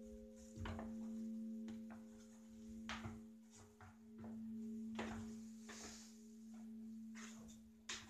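A large church bell's low hum ringing on and swelling gently, with a few soft knocks about every two seconds and some fainter ticks.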